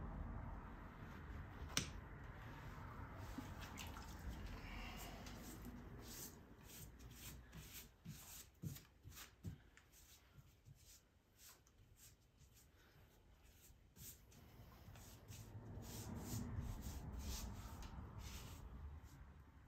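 Faint rubbing of a rubber-gloved hand smoothing wet rubberized mastic over a canoe's canvas hull, with many light scattered ticks and one sharper click about two seconds in.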